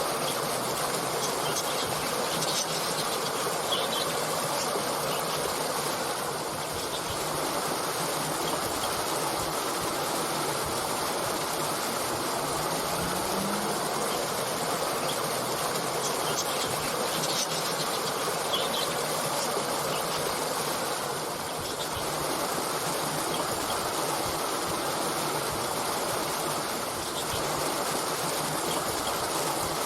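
Stream water flowing steadily, with a few faint, short bird chirps here and there.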